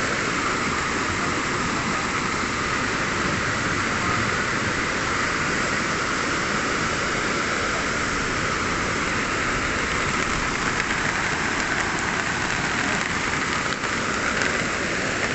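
Heavy tropical rain pouring down in a steady, unbroken hiss.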